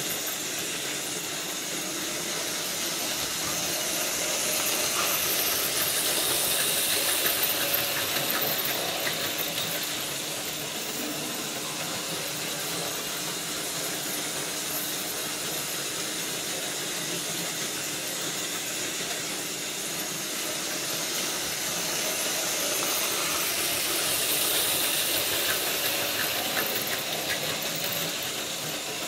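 Märklin model steam locomotive running laps with its wagons: a steady whir of its electric motor and the rattle of small wheels over the track, with fine clicks, swelling twice as the train comes past close by.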